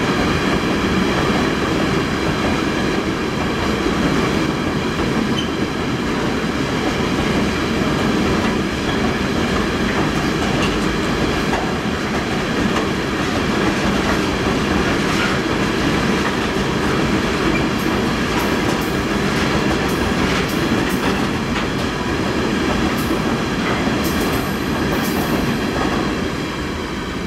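A long freight train of container wagons rolling steadily past, with a few short, thin, very high wheel squeals in the second half. The sound drops away near the end as the last wagons pass.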